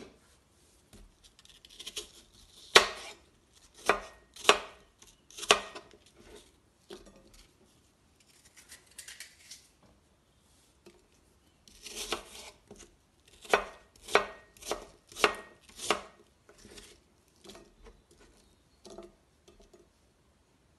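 Kitchen knife cutting apple on a plastic cutting board: a few sharp knocks of the blade striking the board in the first seconds, then a quicker run of about eight knocks in the middle.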